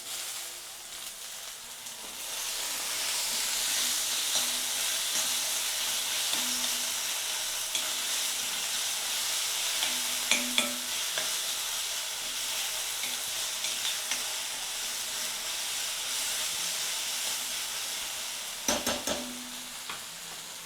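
Onion-tomato masala with freshly added curry leaves sizzling in oil in a kadai while being stirred, the sizzle swelling about two seconds in. A few sharp spatula knocks against the pan come around ten seconds in and again near the end.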